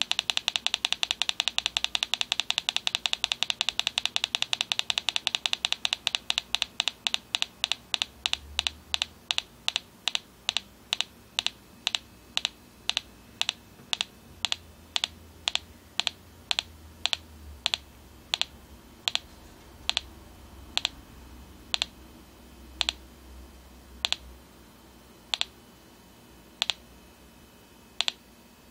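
Small loudspeaker on a homemade breadboard clock circuit, clicking once per clock pulse. The clicks start at several a second and slow steadily to about one every second and a bit, as the potentiometer that sets the clock rate is turned.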